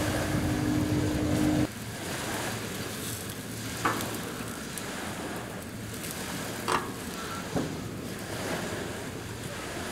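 Fish sizzling on a portable propane grill, a steady hiss broken by three light clicks of a knife against the grill. A steady hum at the start cuts off suddenly after about a second and a half.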